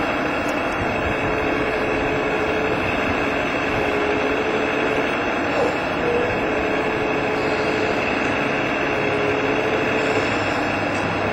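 Wedico radio-controlled Caterpillar 345D model hydraulic excavator running as it digs, a steady mechanical drone with a thin whine that comes and goes as the boom and bucket move.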